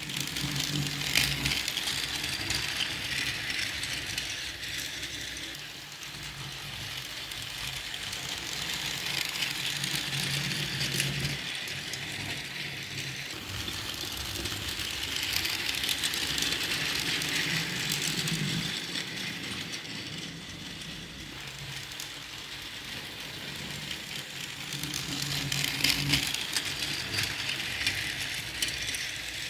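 Battery-powered toy train running on plastic track: the whirring of its small geared motor and the clatter of its wheels and cars, growing louder and fainter in turn about every eight seconds.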